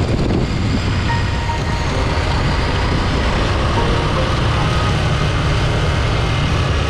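Adventure motorcycle riding along a gravel dirt track: the engine running steadily under a constant rush of wind and tyre noise.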